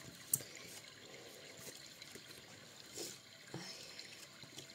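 Faint rustling with a few light clicks of a deck of oracle cards being shuffled by hand.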